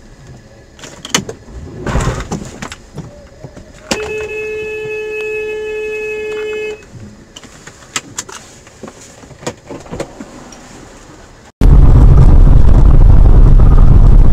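A car horn blown and held for about three seconds, after a few knocks and clatters. Near the end it cuts abruptly to a much louder, steady rushing noise of a car driving, with wind on the microphone.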